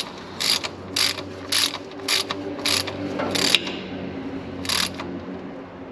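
Socket ratchet clicking in short strokes, about two a second, winding a tapered breather fitting into the diff housing. The strokes stop about three and a half seconds in, with one more near the end.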